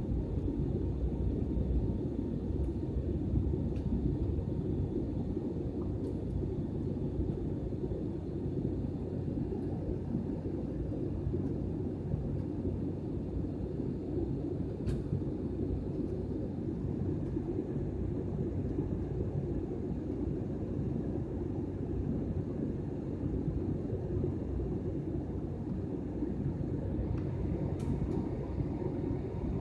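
Steady low rumble of a passenger airliner's cabin: engine and airflow noise heard from a seat, with a faint high steady tone and an occasional light tick.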